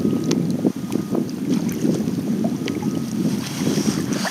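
Wind buffeting the microphone on open water, a steady low rumble, with a few faint clicks over it.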